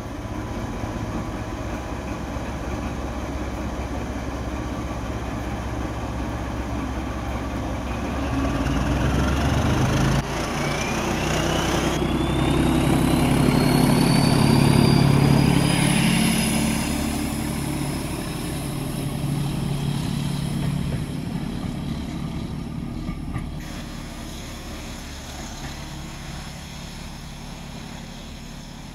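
Class 14 diesel-hydraulic locomotive's Paxman Ventura diesel engine running under power as it passes close by, with a whine rising in pitch. The engine works harder from about a third of the way in and is loudest as the cab passes, then fades as the train draws away.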